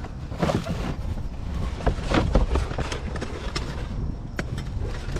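Rummaging through curbside trash by hand: irregular rustling, clicks and knocks of items being moved, over a steady low rumble.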